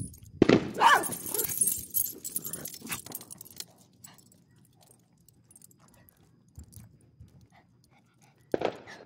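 Small dogs on leashes close by, their metal collar tags jangling and clinking in a busy burst during the first few seconds. A sudden firework bang goes off near the end.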